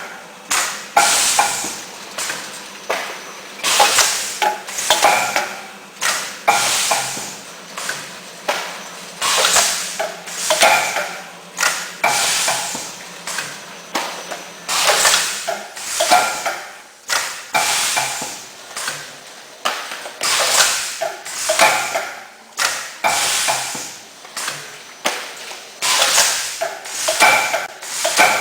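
Automatic tofu packaging machine running: a repeating cycle of sharp mechanical clacks and clatters about once a second. A steady low hum under it stops about halfway through.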